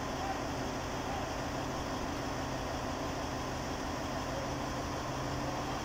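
Heavy machinery engine running steadily at idle, a constant low hum with no change in pitch or load.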